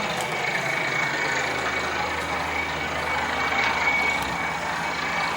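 Water-bore drilling rig's engine running steadily under load, with a thin, steady high whine over it.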